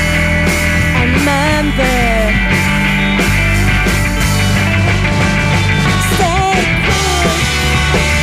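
A rock band playing a song live. Drums beat steadily under held bass notes, with a melody line sliding up and down over them.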